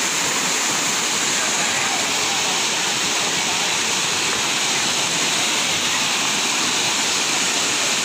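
Small river waterfall pouring over rocks into a pool: a steady, unbroken rush of water.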